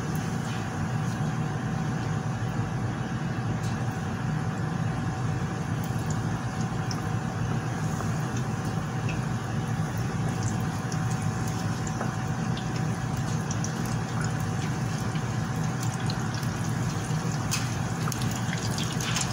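Breaded chicken lollipops deep-frying in hot oil: a steady bubbling sizzle with scattered small pops, over a steady low hum.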